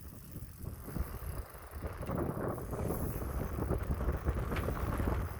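Wind rumbling on the microphone, with a dense irregular crackle that grows louder about two seconds in.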